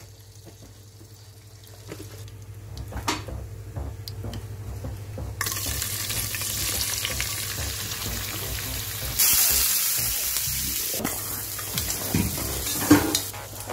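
Whole spices crackling faintly in hot oil in a pressure cooker. About five seconds in, a loud sizzle starts as sliced onions hit the oil, and it surges louder again around nine seconds. A few sharp knocks come near the end.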